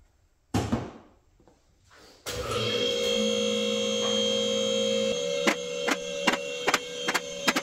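Car lift's electric hydraulic pump motor starting after a short knock and running with a steady hum as it raises a car. From about halfway in, the lift's safety locks click rhythmically, two or three a second, as the carriages rise past each lock stop.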